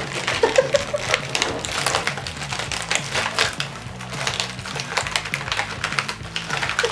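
Clear plastic packaging crinkling and crackling in quick irregular clicks as a child's hands tear at it and pull toy pieces out, with background music underneath.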